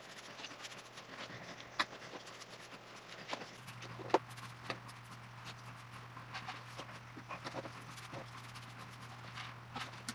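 Paintbrush dabbing gel stain onto a wooden vase, giving irregular light taps and clicks, the loudest about two and four seconds in, over a low steady hum that grows louder about three and a half seconds in.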